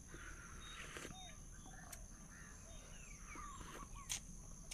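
Faint forest ambience: a steady high-pitched insect drone under many short, scattered chirping calls, with one sharp click about four seconds in.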